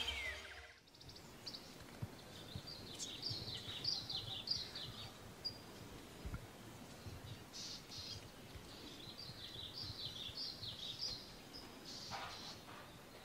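Birds singing, two runs of quick high chirps a few seconds apart over faint outdoor background noise.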